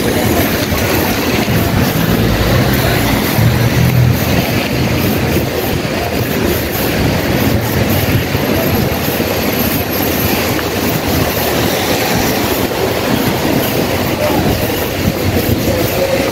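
Heavy rain and wind on a wet city street: a loud, steady rush with a low rumble that swells around three to four seconds in.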